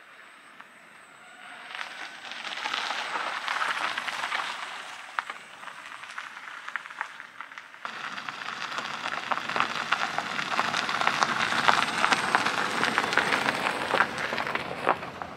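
A car's tyres crunching and crackling over a gravel road as it drives by. The sound swells and fades once, then after a cut a second, louder pass builds as the car approaches and goes by, easing off near the end.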